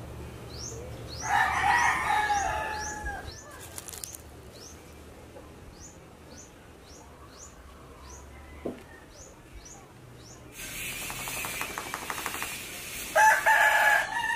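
Rooster crowing about a second in and again near the end, the second crow coming after a few seconds of wing flapping. Behind it a small bird gives a high, short chirp about twice a second.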